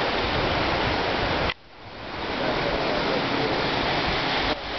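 Steady rushing noise of wind buffeting the microphone, with an irregular low rumble. It breaks off abruptly about a second and a half in and swells back over the next second.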